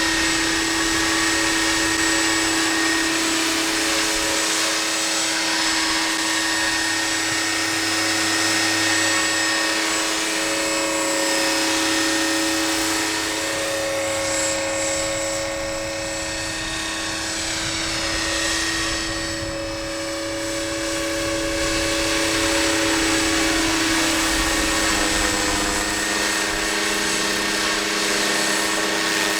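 Scale model Aérospatiale SA 315B Lama RC helicopter flying: a steady whine of its motor and rotor with a hiss of rotor wash, the sound shifting as it moves about and growing a little fainter about two-thirds of the way through.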